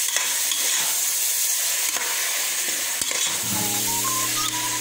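Chopped onions and tomatoes sizzling as they fry in an open pressure cooker while being stirred, with a steady frying hiss and the spoon knocking against the pot now and then.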